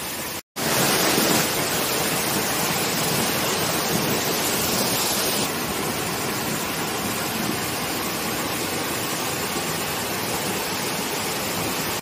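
Monsoon-fed waterfall: water falling and splashing in a steady rush, with a brief break about half a second in.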